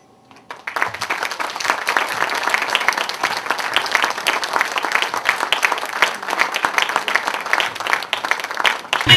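Audience applauding in a hall, a dense clatter of many hands that starts about half a second in and is cut off suddenly near the end as music comes in.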